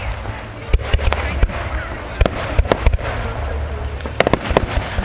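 Fireworks going off: a dozen or so sharp bangs and crackles at irregular intervals, several in quick succession near the end, over a constant noisy rumble.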